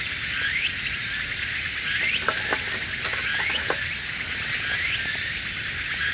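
Insects calling steadily in the background, each call a short rising sweep that repeats about once a second. Over them, a few sharp crackles and snaps come from twigs burning in a small wood-gas camp stove, bunched in the middle.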